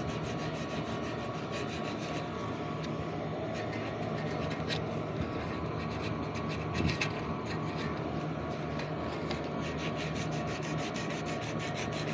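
Sandpaper being rubbed back and forth along a rusted steel fan motor shaft, a steady run of quick scraping strokes, to clean off rust so the fan hub will slide off.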